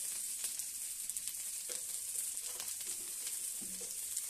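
Parboiled baby potatoes sizzling in hot oil in a metal kadai, a steady high hiss with scattered crackles.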